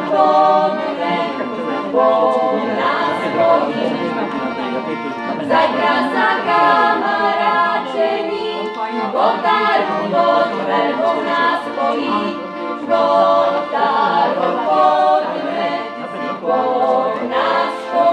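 A folk singing group singing a Slovak folk song together, several voices holding sung notes in harmony.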